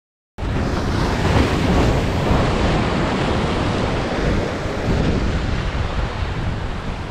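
Ocean surf breaking and washing over jetty boulders in a continuous roar, with wind buffeting the microphone. The sound cuts in just after a brief dropout at the very start.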